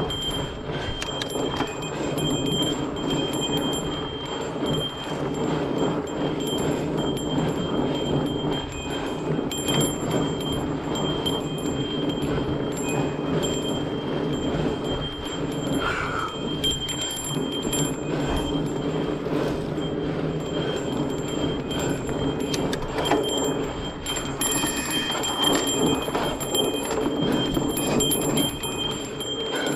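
Mountain bike riding over a dirt trail: steady rumble of tyres and wind, with a constant thin, high metallic ringing and small rattles over it.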